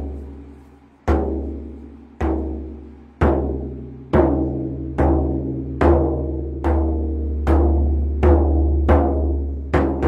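A drum beaten with single, deep, ringing strikes, each boom left to fade before the next. The beat speeds up steadily, from about one strike a second to well under a second apart.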